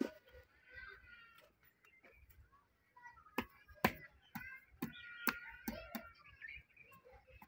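High-pitched animal calls, some drawn out and some short, with a quick string of sharp chirps in the middle.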